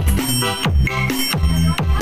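Electronic dance music played loud through a pair of two-way speaker cabinets fitted with P-Audio SD12 1000EL 12-inch woofers and BM D750 horn tweeters: a fast, even beat of deep bass hits that each drop in pitch, with synth tones layered above.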